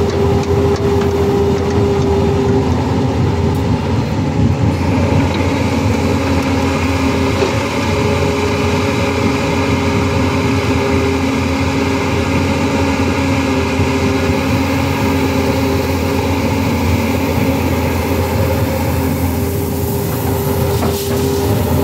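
Tata Hitachi Zaxis 220LC excavator's diesel engine running under load as its hydraulics swing, dig and dump gravel: a steady heavy drone with a whining tone that drops out and returns several times.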